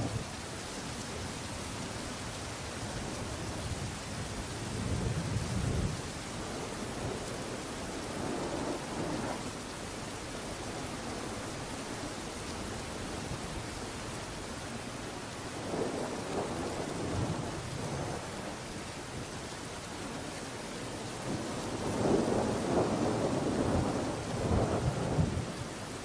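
Steady hiss with several swells of low rumble; the longest and loudest comes near the end and lasts a few seconds.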